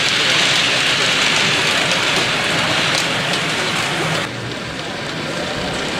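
Model railway train rolling past on its track, a steady rushing clatter of small wheels on rail that drops away abruptly a little over four seconds in.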